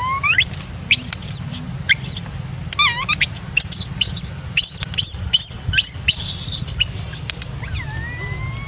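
Infant long-tailed macaque screaming in a rapid series of shrill squeals that rise and fall in pitch, followed near the end by a longer, lower cry. These are an infant's distress cries at being refused milk by its mother.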